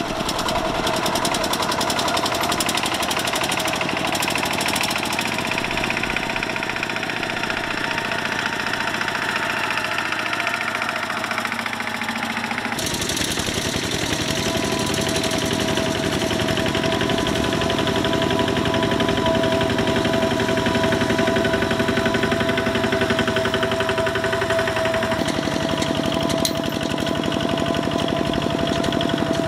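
Single-cylinder diesel engines of two-wheel walking tractors chugging steadily under load while pulling loaded trailers through mud. The engine sound changes abruptly about thirteen seconds in, and again near the end, as a different tractor is heard.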